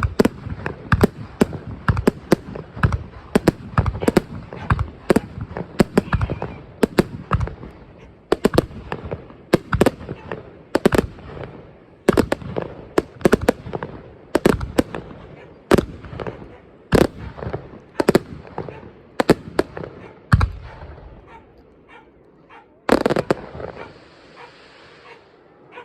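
Aerial fireworks going off: a rapid, continuous barrage of sharp bangs and crackles that thins out after about twenty seconds, with one last big burst near the end.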